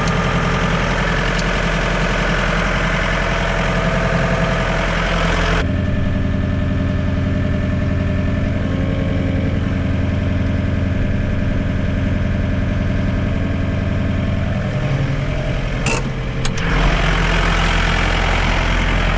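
John Deere 4520 compact tractor's diesel engine running steadily. About six seconds in it becomes muffled, heard from inside the cab, and near the end come two sharp clicks before the engine is heard in the open again.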